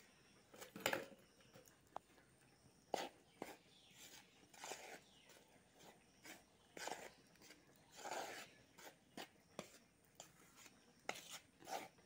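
Hands mixing dry maida flour with a little oil on a plate, heard faintly as irregular soft scrapes and rubs with a few sharp clicks.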